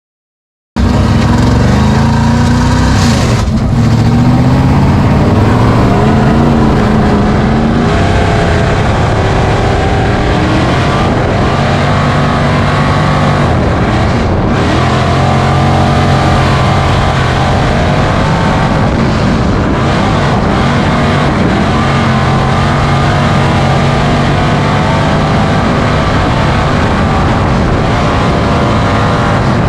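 Race car engines running hard, their pitch rising and falling with the throttle. It starts abruptly about a second in and stays loud.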